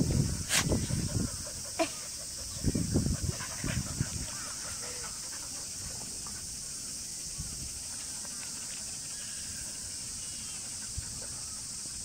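A small terrier and an English setter play-fighting on grass: bursts of play growling and scuffling in the first four seconds, then it goes quiet apart from a steady high hiss.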